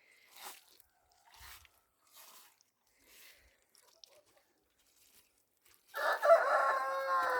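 A rooster crows once, loud, about six seconds in, the call bending down in pitch at its end. Before it, faint short scraping and rustling sounds come every second or so.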